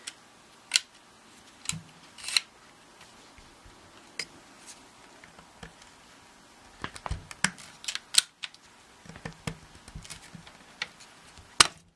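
Scattered sharp clicks and small knocks of metal and polymer parts as the CZ Scorpion Evo's takedown pin is pushed out and the lower is worked off the receiver, thickest in the last few seconds, with the loudest click just before the end. The lower is a tight fit with the aftermarket Pathfinder grip fitted.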